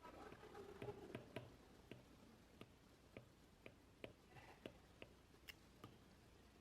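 Faint, irregular light clicks and taps, about a dozen over several seconds, slightly busier in the first second or so.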